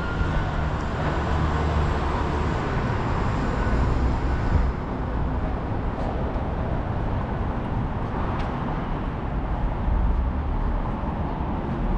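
City street traffic: a steady low rumble of vehicles with road noise, heavier for the first four to five seconds, easing off, then swelling again about ten seconds in.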